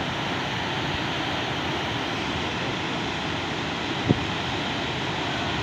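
Steady rush of a swollen, muddy flood torrent pouring through a bridge's piers. A short low thump comes about four seconds in.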